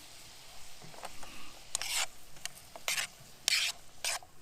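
Bacon, onions, tomatoes and garlic sizzling softly in a camp pan, with a few short scraping strokes of a utensil stirring against the pan, the loudest about two and three and a half seconds in.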